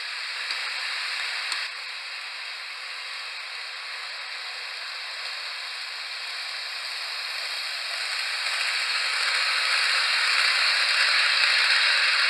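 H0-scale model train running on sectional track: a steady hiss of wheels and a small motor on the rails, with a couple of faint clicks in the first two seconds. It grows louder from about eight seconds in as a train comes close.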